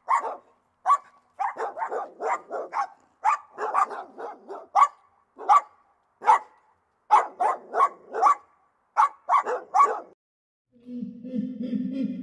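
Dog barking repeatedly in quick runs of several sharp barks with short pauses between, stopping about ten seconds in. Near the end a low, drawn-out sound with a steady pitch begins.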